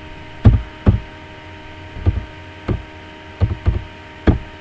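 Computer keyboard keys being typed one at a time: about seven heavy, knocking taps at an uneven pace, some in quick pairs.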